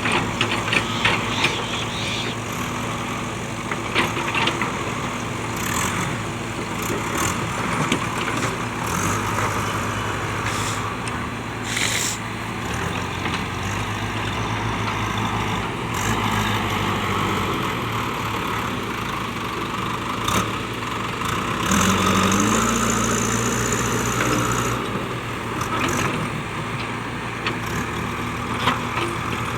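Diesel engine of a JCB backhoe loader running under work, revving up briefly a little past the middle, with a few short knocks.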